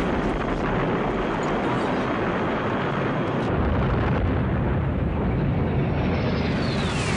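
A long, steady explosion-like rumble, with a falling whistle near the end.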